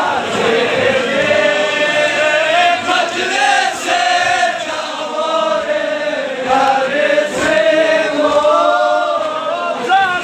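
A crowd of men chanting a Balti noha, a mourning lament, together in unison. The many voices rise and fall in a sung melody.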